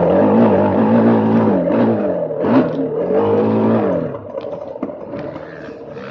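KTM 350 four-stroke single-cylinder dirt bike engine revving up and down under changing throttle while riding. About four seconds in the throttle eases off and the engine note drops, picking up again near the end.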